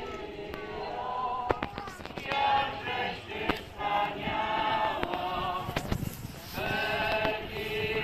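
Congregation singing a hymn together in long held notes, phrase after phrase with short breaks, with a few sharp clicks mixed in.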